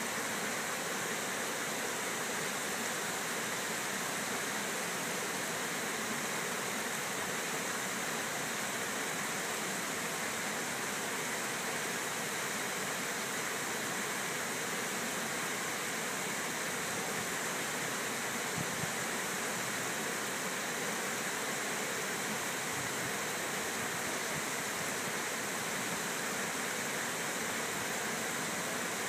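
Water pouring over a river dam's curved spillway: a steady, even rush.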